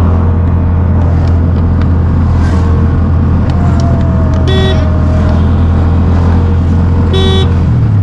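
Motor tricycle (keke) engine running with a steady low hum while riding through traffic. Two short horn beeps sound, about four and a half seconds in and again near the end.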